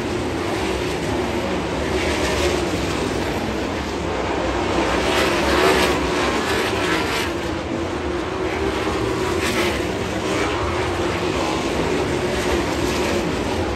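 Winged dirt-track sprint cars racing, their V8 engines running hard in a continuous drone with pitch swells as cars pass. The sound is loudest about five to six seconds in.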